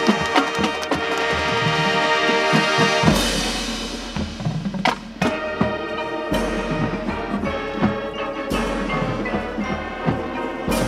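High school marching band playing its field show: full sustained chords for about the first three seconds, then a thinner, slightly quieter passage with repeated percussion strikes.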